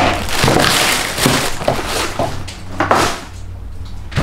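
Cardboard shoeboxes being handled on a wooden table. A rustling scrape comes first, then several knocks, with a louder thump about three seconds in as a box is set down and moved.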